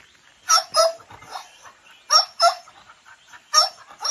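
Dog barking: short, sharp barks in quick pairs, three times over a few seconds.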